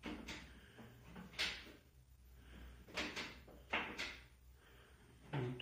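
Zontes U1 125 motorcycle's foot gear lever being worked with the engine off and the bike at a standstill: several short, dull clunks from the shifter and gearbox.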